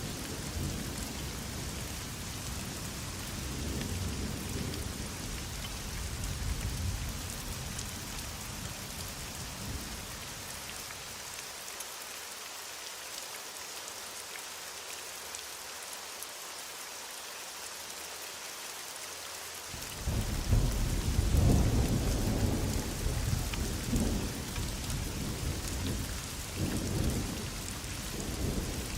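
Heavy rain falling with a steady hiss, under rolling thunder. Low rumbles fill the first third, then the rain goes on alone for a while, before a loud peal of thunder breaks in suddenly about two-thirds of the way in and rolls on in waves.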